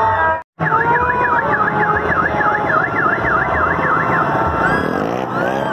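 A brief dropout, then a fast warbling siren-like tone that rises and falls about three times a second for about three and a half seconds. Underneath it, plastic party horns (baja) blow steady held notes in a noisy street crowd.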